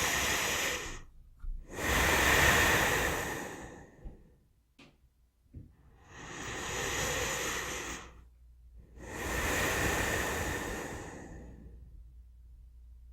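A person breathing calmly and slowly: four long, airy breaths, each about two to three seconds, with short pauses between them.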